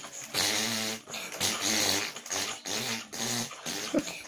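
A boy imitating a motocross motorcycle engine with his mouth: a buzzing, lip-vibrating engine noise in a string of short bursts, its pitch stepping up and down like revving and gear changes.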